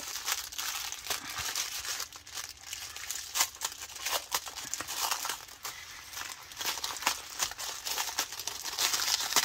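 Small plastic bags of diamond-painting drills crinkling and crackling steadily as they are handled and sorted through.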